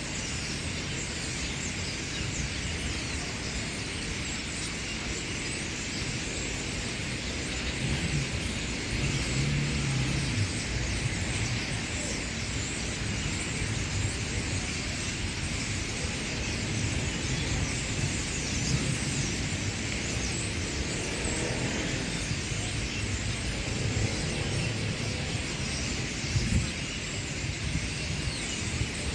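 Outdoor city ambience: a steady low rumble of passing traffic, swelling now and then, under a continuous high-pitched chatter.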